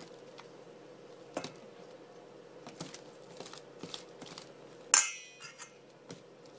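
Metal spoon knocking and scraping against a glass mixing bowl while working hard butter into flour, in scattered light taps, with one loud ringing clink about five seconds in.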